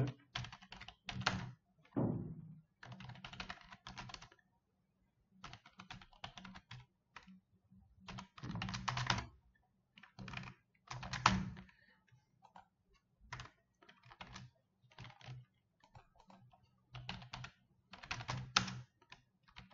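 Someone typing on a computer keyboard in short bursts of key clicks with pauses between them.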